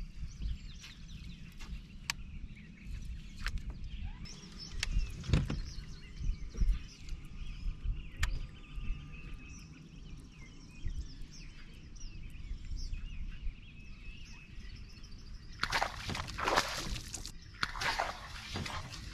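Water splashing hard at the surface several times over a few seconds, starting about three-quarters of the way in: a hooked bass thrashing on top near the kayak. Before that, birds chirp faintly over a low wind rumble, with a few sharp clicks.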